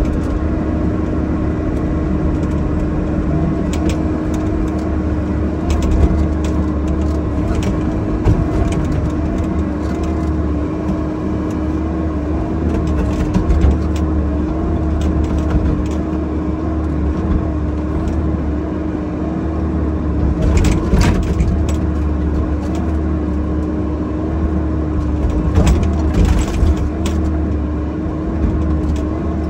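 Bobcat E50 mini excavator's diesel engine running steadily under hydraulic load, heard from inside the cab, with a constant hum. Sharp cracks and knocks come a few times in the second half as the bucket breaks the tree and splinters the stump.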